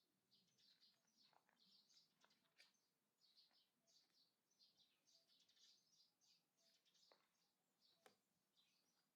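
Faint chirping of small birds, many short rapid calls one after another, with a few sharp clicks in between.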